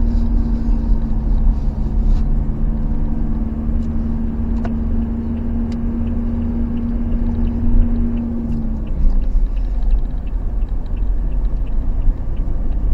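Vehicle engine and road rumble heard from inside the cabin on a steep climb, with a steady engine hum that drops away about nine seconds in.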